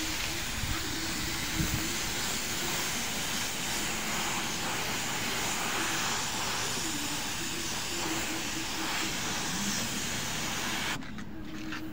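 Paint spray gun hissing steadily with compressed air as it sprays paint onto a car panel, cutting off near the end.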